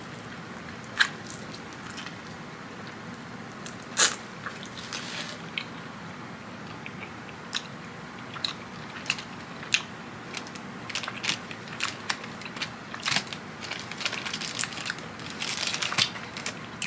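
Close-up eating sounds of crispy fried chicken wings: scattered sharp bites and crunches with chewing. One louder crunch comes about four seconds in, and the crunching gets denser in the last few seconds.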